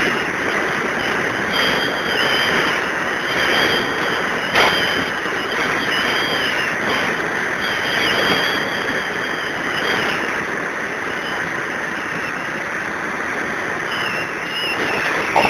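Steady rush of wind and road noise from a vehicle moving along a road, with a faint high whine that wavers in pitch and a single sharp click about four and a half seconds in.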